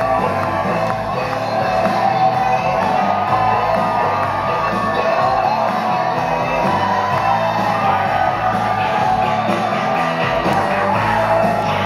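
Loud music playing, with a crowd shouting and whooping over it.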